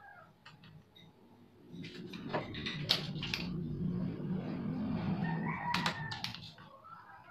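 A rooster crowing for several seconds, starting about two seconds in, with several sharp clicks from a spring-loaded desoldering pump worked on a circuit board.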